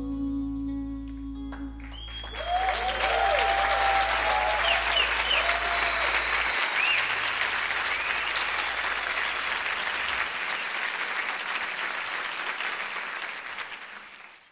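The last chord of a live song rings out, then an audience bursts into applause about two seconds in, with cheers and whistles over it. The applause fades near the end and cuts off.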